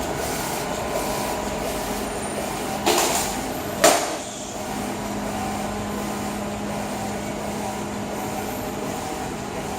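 An eco-solvent wide-format printer running with a steady mechanical hum, with a short rustling noise about three seconds in and a sharp knock a second later.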